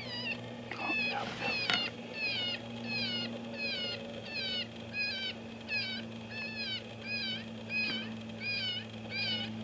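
Electronic predator caller playing a looped, meow-like distress cry: short pitched wails repeating evenly, about two a second.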